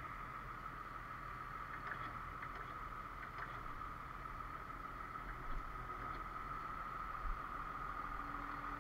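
A utility bucket truck's engine running steadily: a low rumble with a steady high-pitched whine over it.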